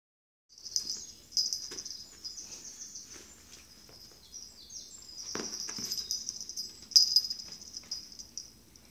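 A cat's metal collar tag jingling in quick, uneven rattles as the cat scratches and rolls about, with a few soft knocks against the padded mat; the sharpest jingle comes about seven seconds in.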